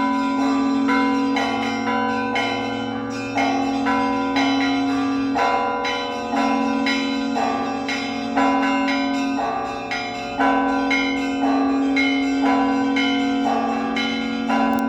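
Russian Orthodox church bells ringing a peal: several smaller bells of different pitch struck in a quick repeating pattern, about two strikes a second, over the steady low hum of a large bell.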